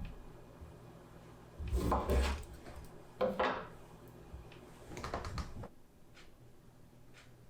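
Dishes and wooden objects being handled: three short clusters of knocks and clatter, then quiet.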